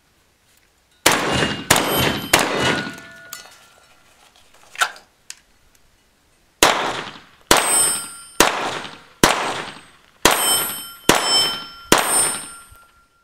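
Pistol shots at steel plate targets, each shot followed by the clang and ringing of a struck steel plate. Three or four shots come quickly early on, then after a pause of a few seconds seven more come at a steady pace of a little over one a second.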